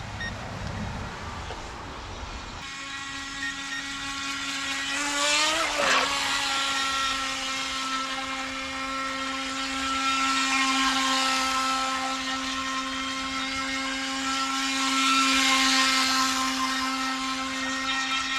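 Electric motor of a DEERC H120 RC speedboat whining as the boat runs on the water. The pitch climbs sharply about five seconds in as it speeds up, then holds steady.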